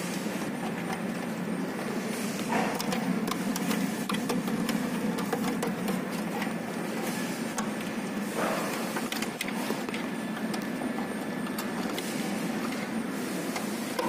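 Steady background machine-like hum, with scattered light clicks and rustles as thin control wires are handled and pushed into terminals in an electrical control panel.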